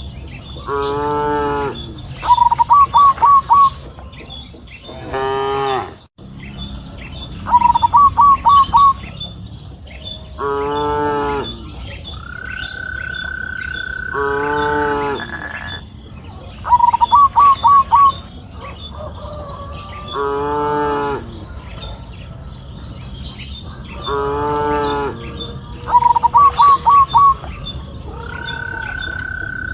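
Cattle mooing every few seconds, each moo lasting about a second. In between, a bird repeats a call of four quick, evenly spaced notes four times, the loudest sound here, and a long steady high note is held for about three seconds midway.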